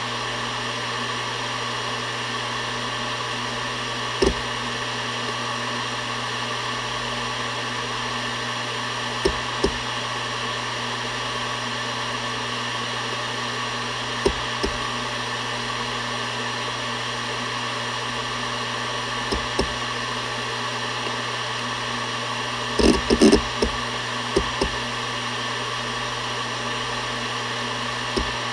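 Seagate Barracuda ES.2 ST31000340NS 7200 rpm hard drive spinning with a steady hum and whine, its heads seeking in scattered single clicks every few seconds. About three-quarters of the way through comes a short rattle of several quick seeks.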